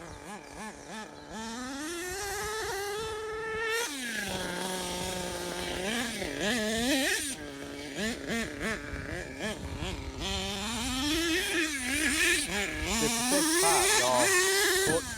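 HPI Savage 3 Speed RC monster truck's small nitro engine revving up and down as the throttle is worked. It drops to a steady idle for a couple of seconds about four seconds in, then revs higher and louder near the end.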